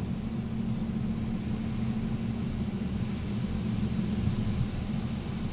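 Vehicle driving on beach sand, heard from inside the cab: a steady low rumble of engine and tyres with a constant hum.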